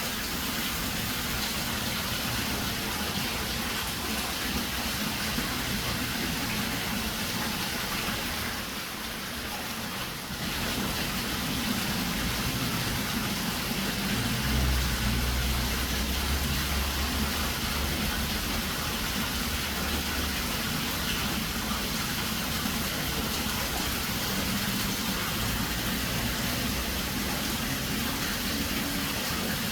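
Steady rushing of water, with a short dip about nine seconds in and a low rumble underneath for several seconds midway.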